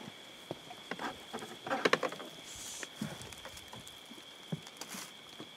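Slow footsteps crackling over dry, flattened reeds and a wooden boardwalk, a scatter of soft crunches and taps with a busier cluster about two seconds in. A faint steady high whine sits under it.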